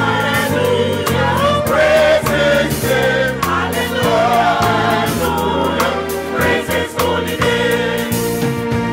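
Church choir singing a gospel song in parts, over instrumental accompaniment with sustained bass notes.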